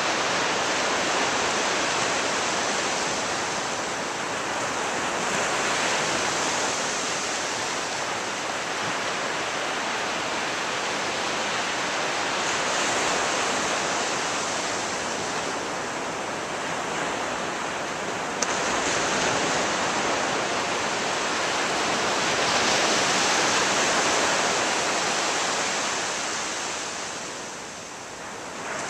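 Ocean surf breaking and washing on a beach, swelling and easing every few seconds, with one brief click about two-thirds of the way through.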